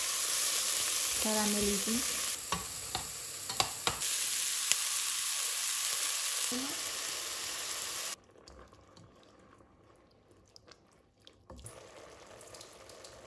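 Food sizzling in a frying pan as it caramelizes, stirred with a utensil that taps the pan several times. The sizzle cuts off abruptly about eight seconds in, leaving faint small clicks.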